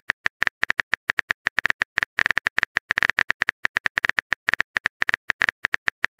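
Keyboard typing sound effect of a texting app: a rapid, slightly uneven run of short clicks, about seven or eight a second, one for each character typed.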